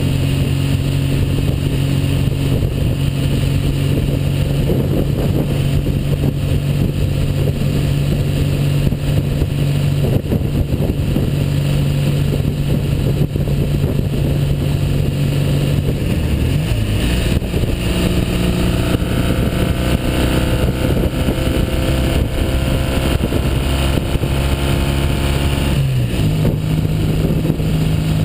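Freshly overhauled 1959 Norton Dominator 99 600 cc air-cooled parallel-twin engine running steadily under way. Its note dips and settles at a new pitch about two-thirds of the way through, and again near the end.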